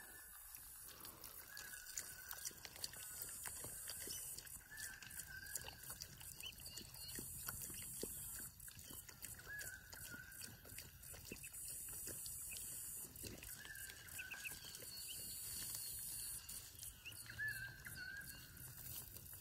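Ducklings and hens calling softly in their yard: short wavering chirps come every couple of seconds, with scattered light clicks in between.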